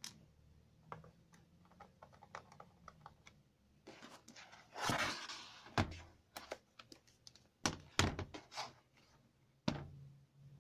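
HP Stream 11 laptop's plastic case being handled on a wooden table: scattered small clicks, a sliding scrape about five seconds in as the laptop is flipped over, and several thunks as it is set down and shifted.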